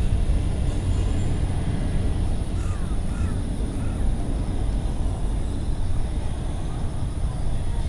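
Cat purring steadily right at the microphone: a continuous low rumble.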